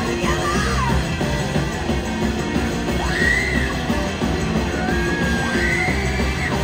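Live rock band playing: electric guitar and a woman's wordless vocal shouts and sung lines gliding up and down in pitch, over drums and bass.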